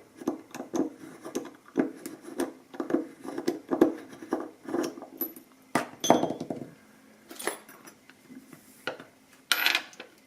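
Small metal parts of a CX5 high-security lock clicking and clinking as it is worked on and taken apart: a quick run of sharp clicks, several a second, then a few separate clinks and a short rattle near the end.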